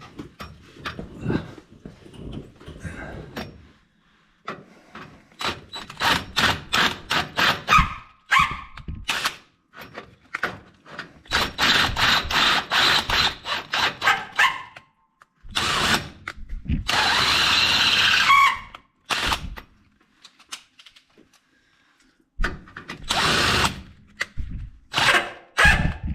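Power drill boring out a bolt hole in the car's steel frame, enlarging it in steps to take a rivet nut. The drill runs in repeated stop-start runs of one to three seconds, with quick short pulses of the trigger about a third of the way in.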